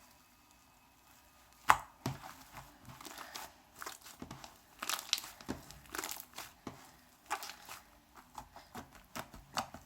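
Foamy slime made with shaving foam being mixed and kneaded by hand, giving irregular sticky crackles and pops. The sharpest pop comes about two seconds in.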